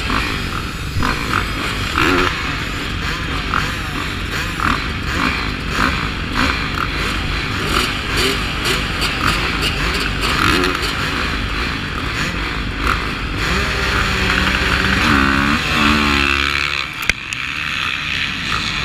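A line of motocross bikes at the start gate, engines running and blipping the throttle, then rising in pitch together as the pack launches and pulls away near the end. A sharp knock comes just before the end, and the deepest engine sound drops out.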